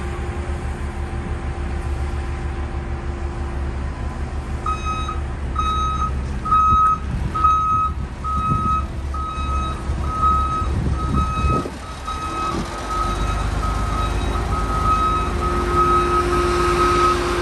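Volvo A40E articulated dump truck manoeuvring in reverse: its backup alarm beeping steadily over the running diesel engine. The beeping starts about five seconds in, and the engine revs up near the end.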